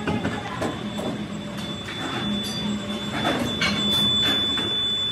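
Motor-driven trough mixer for foundry moulding sand running: a steady pulsing hum with irregular scraping knocks as the sand is churned, and a high whine that gets louder near the end.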